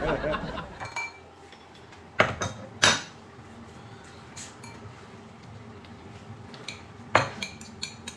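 Dishes and eating utensils clinking and knocking against each other at a meal table, with a few sharp clinks at about two, three and seven seconds in and lighter taps between.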